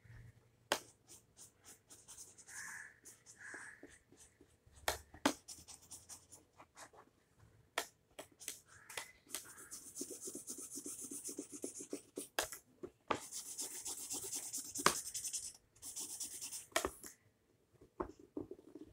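Felt-tip sketch pen rubbing and scratching on paper as a drawing is coloured in, in runs of quick back-and-forth strokes, with scattered sharp clicks and taps.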